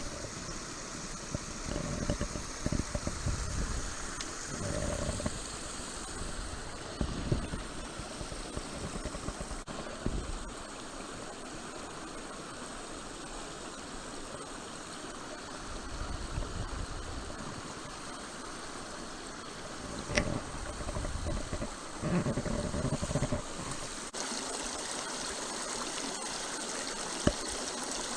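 Small mountain stream running steadily over rocks. Several low rumbles on the microphone and a few sharp clicks come and go.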